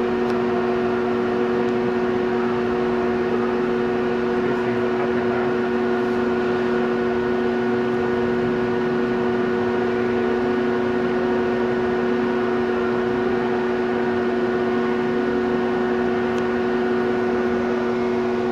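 Amada Togu III punch and die grinder running, a steady hum and whine of several fixed tones that does not change in pitch or level.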